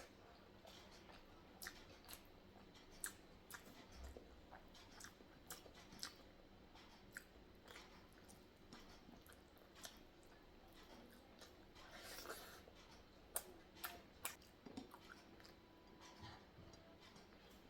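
A person chewing sambar rice, with many soft, wet mouth clicks scattered throughout and a brief noisier stretch about twelve seconds in.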